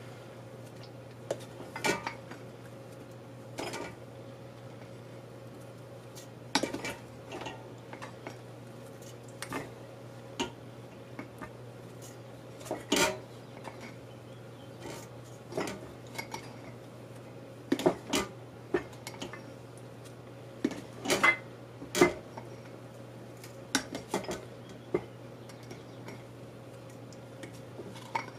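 A measuring cup scooping brown sugar from a glass jar and knocking against the jar and a stainless steel stock pot: scattered light clinks and knocks every second or two, over a faint steady hum.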